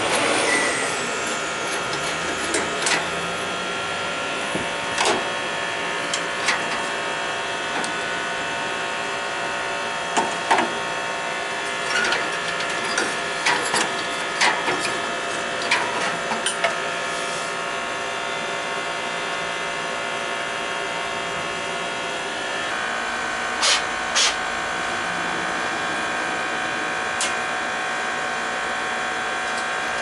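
Scattered clicks and metal knocks of hand tools working on furnace and water-heater parts, several close together between about ten and seventeen seconds in and two louder knocks near twenty-four seconds, over a steady mechanical hum whose pitch shifts slightly about twenty-three seconds in.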